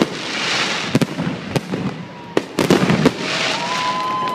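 Fireworks display: shells bursting with several sharp bangs between stretches of crackling. A long whistle starts near the end.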